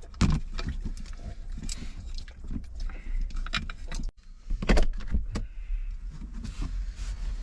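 Clatter of a cooking pot and utensils being handled, with several sharp knocks and clinks, over a steady low rumble.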